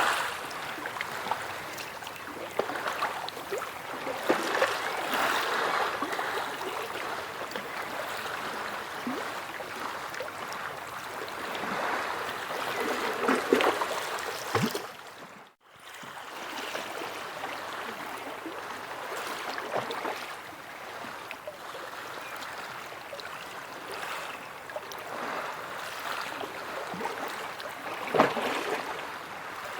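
Sea waves washing on a shore: a continuous rush of surf that swells louder now and then and eases again. About halfway through it cuts out abruptly for a moment, then carries on.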